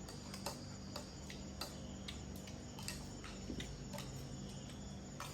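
Irregular light clicks and ticks, about one or two a second, over a steady low hum.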